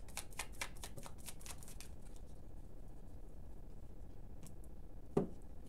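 Tarot cards being shuffled by hand: quick papery flicks, about six a second, for the first two seconds, then they stop. A single soft thump sounds near the end.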